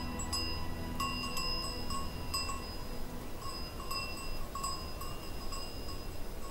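Bells worn by a herd of goats clinking irregularly as the animals move, about two ringing strikes a second, over a low steady hum.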